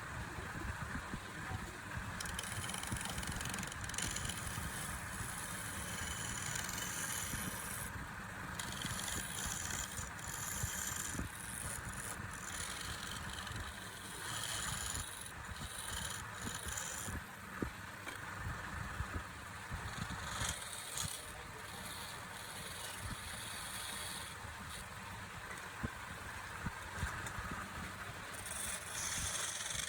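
Wood lathe running steadily, with the turning tool scraping against the spinning wood on and off in stretches of a few seconds.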